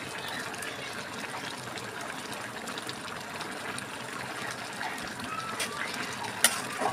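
A pot of rice bubbling vigorously on a gas stove, a steady watery hiss and burble. Near the end a sharp clink as a spoon goes into the pot to stir.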